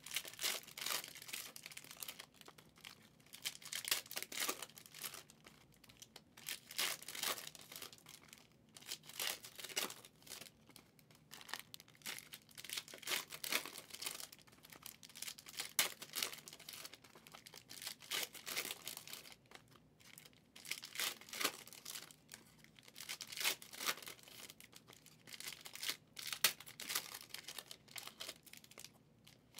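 Foil trading-card pack wrappers (2023 Prizm NFL packs) being torn open and crinkled by hand, in irregular bursts of crackling with short lulls between.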